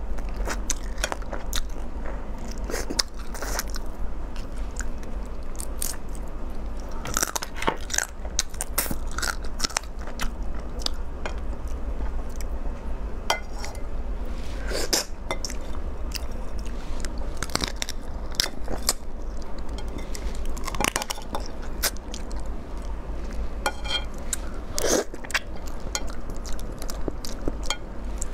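Close-up crunching and chewing of raw swimming crab: shell and legs cracking with many sharp crackles and clicks as the crab is bitten and pulled apart, over a steady low hum.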